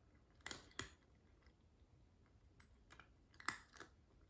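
Cat crunching dry kibble: a few short, sharp crunches, coming roughly in pairs, the loudest about three and a half seconds in.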